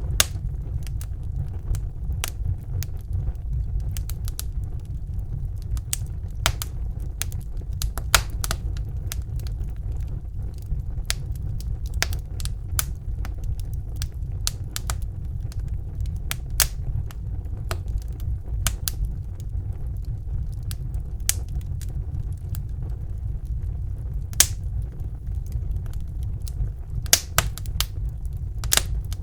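Wood fire crackling in a fireplace: a steady low rumble of burning with sharp, irregular pops and snaps. A few louder pops stand out, several of them close together near the end.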